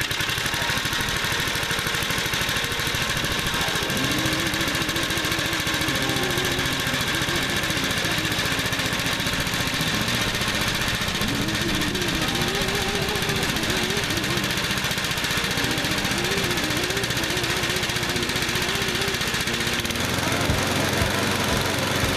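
Outils Wolf lawn tractor's engine running steadily at operating temperature; the replacement engine is nearly new and runs like new. A wavering tone rides over it through the middle, and the deep part of the sound shifts near the end.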